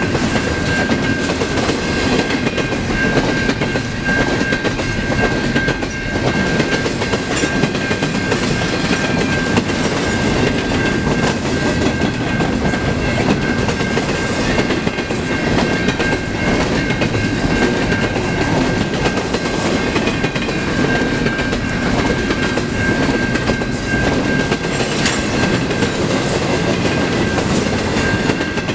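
CN intermodal freight train's double-stack container cars rolling past at speed, wheels clattering over the rails with a steady rumble. A steady high ringing tone sounds over it, the level-crossing bell of the lowered crossing.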